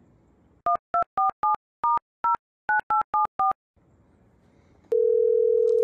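Phone keypad dialing tones: ten quick two-tone beeps over about three seconds. Near the end one steady tone starts, the line ringing at the other end.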